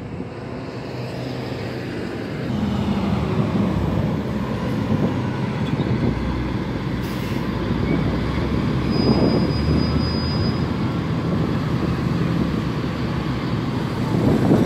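Truck engine running with a steady low drone. About nine seconds in, a brief high-pitched squeal joins it.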